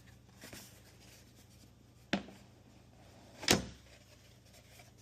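Packaging being handled while a paper headphone box is opened: two sharp knocks, the louder one about three and a half seconds in, over quiet room tone.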